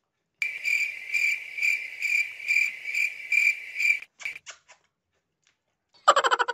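A steady, high-pitched cricket-like chirping trill, pulsing about twice a second, that stops about four seconds in and is followed by a few light clicks. Near the end a loud, rapid run of pitched blips starts, falling in pitch.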